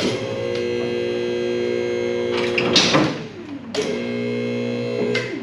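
Two-post vehicle lift's electric hydraulic pump motor running with a steady hum as it raises a truck cab. It runs in two stretches, about three seconds and then about a second and a half, with a short stop between where the pitch falls away.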